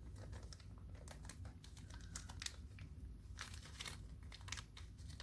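Faint crinkling and rustling of packaging being handled, a scatter of small crackles that thickens a little past the middle.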